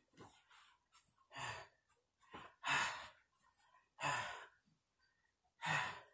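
A man breathing out hard in short huffs during an exercise workout, four of them roughly a second and a half apart.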